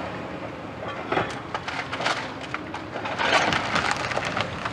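Caterpillar 329 excavator's demolition grapple tearing apart a flat roof: wooden roof boards splintering and cracking in a string of sharp snaps, with a loud crunching burst about three seconds in. The excavator's diesel engine runs steadily underneath.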